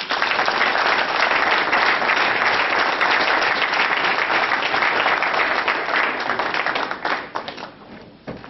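Audience applauding, a dense crowd of hand claps that starts suddenly and dies away over the last second or so.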